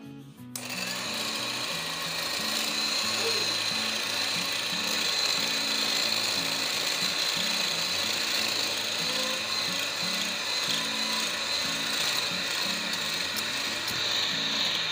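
Electric hand mixer switched on about half a second in and running steadily with a high whine, its beaters whisking two raw eggs in a glass bowl.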